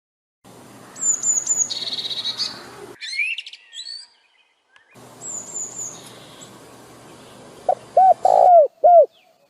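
Wild birds calling outdoors in two abruptly cut stretches separated by silence: high quick chirps and a brief buzzy trill over a low background hiss. Near the end come four short, loud, low cooing notes.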